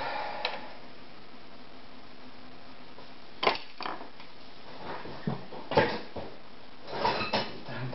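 Scattered knocks and clatters of hard objects being handled, a small group of sharp clicks a few seconds in and another cluster near the end, as of someone rummaging for screwdrivers among tools.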